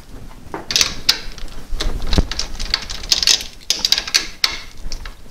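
Hands taking the nut and washer off a quilting frame's handwheel and working the plastic handwheel off its take-up bar: irregular small clicks, light metal taps and rustling close to the microphone, with one louder knock about two seconds in.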